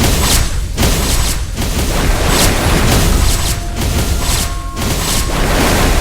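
Loud, dense rumbling with repeated heavy booms and crashes, music faint underneath.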